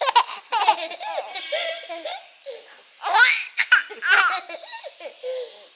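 Seven-month-old baby laughing in short high-pitched bursts, with a louder bout of laughter about three seconds in.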